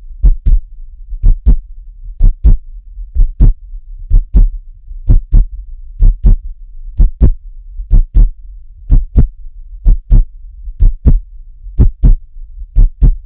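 Human heartbeat: steady paired lub-dub beats, about one pair a second, over a faint low hum.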